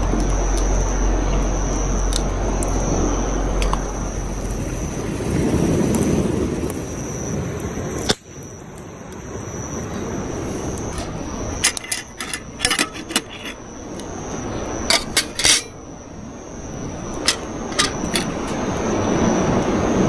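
A steady rushing noise that swells and fades, with a thin high steady tone over it. About halfway through, a quick run of light clinks and knocks.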